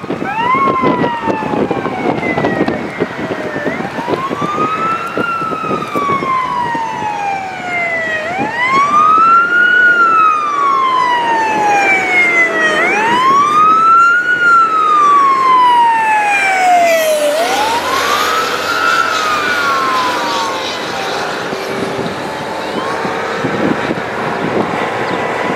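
A siren wails in a repeating cycle, rising quickly and falling slowly about every four and a half seconds. It goes round five times, then fades after the last rise. Wind buffets the microphone underneath.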